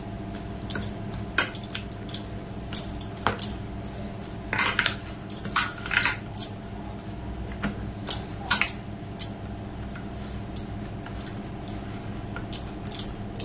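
Hands kneading soft wheat-flour dough in a stainless steel plate: the dough is pressed and pushed around the metal, with irregular clinks and knocks from bangles and the plate, over a steady low background hum.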